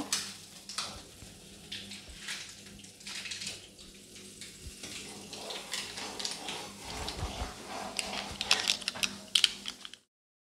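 Butter sizzling as it melts in a black iron wok, with irregular crackles and pops and the perforated spatula scraping the pan now and then. It cuts off suddenly about ten seconds in.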